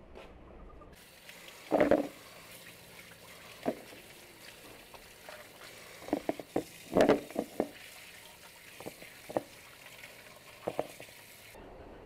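Fresh green peppers being handled in a bowl: a series of irregular short knocks, the two loudest about two seconds in and about seven seconds in.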